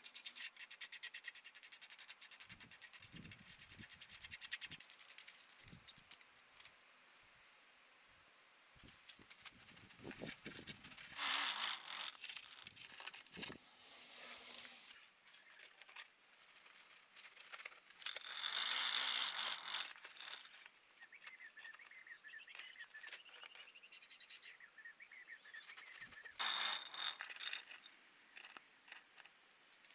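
Fast, repeated rubbing strokes that stop with a sharp click about six seconds in, then, after a short pause, separate bursts of scraping and rubbing.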